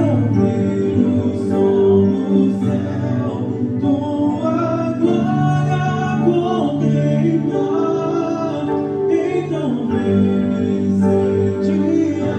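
Christian worship song sung in Portuguese: singing voices over sustained chords that run on without a break.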